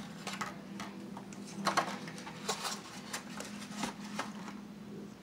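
Close-miked eating sounds: scattered small clicks and crackles from chewing seafood salad and a plastic fork picking through a foam takeout container, over a steady low hum.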